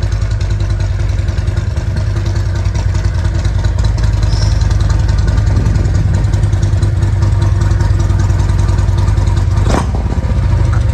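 Harley-Davidson Road Glide Special's 131-cubic-inch Milwaukee-Eight V-twin engine idling steadily with a pulsing beat. A single brief click near the end.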